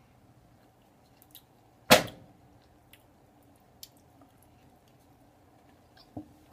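Quiet chewing of a soft slice of vegan cheese, with a few faint mouth clicks. A single sharp click about two seconds in is the loudest sound.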